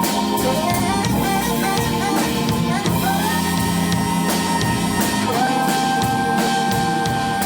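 A live band with drums, bass, keyboards and saxophone plays an instrumental passage. It has regular drum hits, and a melody slides up into long held notes about three and five seconds in.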